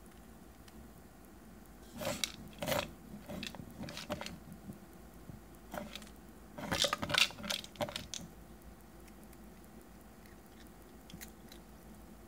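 A cat batting a plastic treat-dispensing wobble toy across a tile floor: the toy clatters as it tips and rocks, and the dry treats inside rattle, in bursts of quick clicks and knocks about two seconds in, again around four and six seconds, and most loudly around seven seconds. After that only a few faint ticks are heard.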